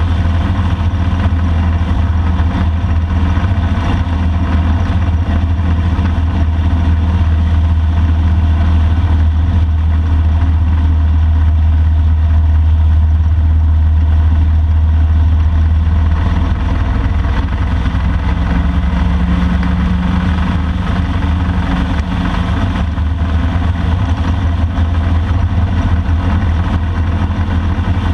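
Motorcycle engine running steadily at cruising speed, with wind and road noise. The engine note shifts a little just past halfway.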